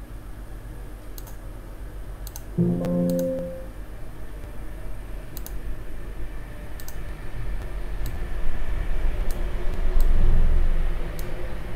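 Computer mouse clicking every second or so, over a steady low hum. About two and a half seconds in, a short pitched tone sounds for about a second.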